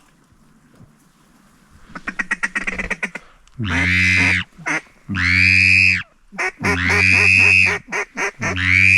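Hunter's duck call blown hard: a quick run of short chattering notes, then four long, loud drawn-out calls about a second each.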